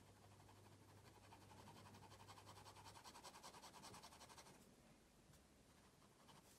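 Fine-liner pen scratching on sketchbook paper, faint: light strokes, then a run of rapid hatching strokes, about eight to ten a second, from about a second and a half in to about four and a half seconds in.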